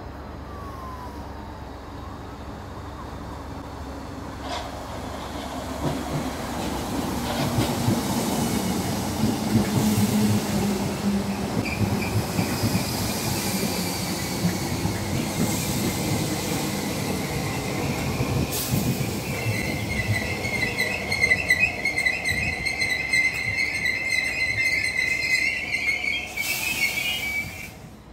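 Merseyrail electric multiple unit running into the station, its rumble growing louder over the first several seconds, then a high steady squeal as it brakes that grows stronger toward the end and cuts off suddenly.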